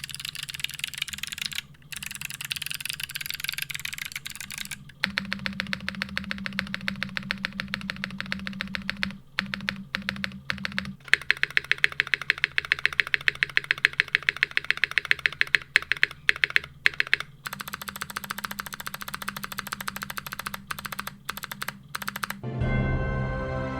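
Mechanical keyboard keys clacking, then the spacebars of three custom mechanical keyboards pressed rapidly in turn, one board after another, at about five presses a second. Music starts near the end.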